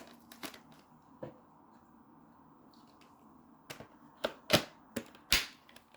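Plastic clicks and knocks as the dust bin is fitted onto a Samsung Jet 90 stick vacuum: one or two light clicks early on, then a cluster of sharper ones from nearly four seconds in, the loudest around four and a half and five and a half seconds in.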